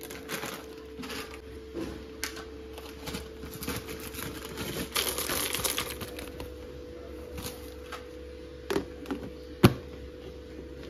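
Foil packaging crinkling as it is handled, then a dense rustle and rattle as small snack pieces are poured from the foil bag into a plastic tub. Near the end, a few sharp plastic clicks as the tub's lid is pressed shut, the loudest about ten seconds in.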